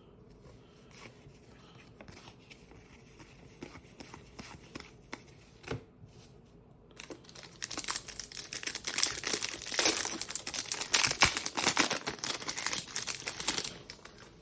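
Trading card pack wrapper being torn open and crinkled, loud and crackly from about halfway through, after several seconds of faint handling clicks.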